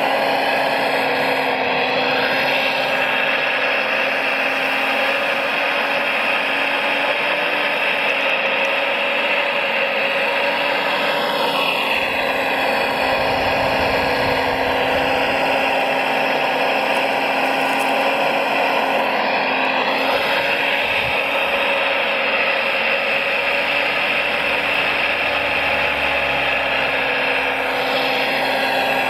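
Small electric motors of radio-controlled construction models whining and grinding steadily. The whine dips and rises in pitch a few times, about twelve seconds in, around twenty seconds and near the end, as the motors change speed.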